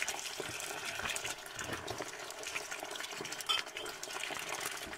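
Tomato sauce sizzling and bubbling in a hot frying pan, a dense steady crackle, with one brief louder knock about three and a half seconds in.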